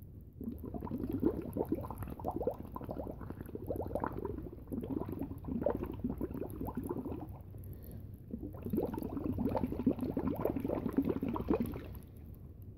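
Blowing through a straw into a cup of drink, bubbling and gurgling in three long stretches with brief pauses between.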